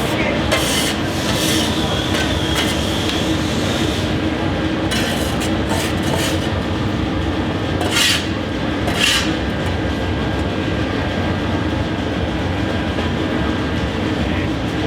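Steady clatter and hum of running workshop machinery, broken by several short, sharp noises, the loudest about eight and nine seconds in.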